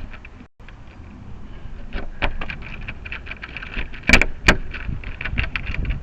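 Door lock hardware and keys being handled: a run of small metal clicks and rattles, with two sharp clacks about four seconds in.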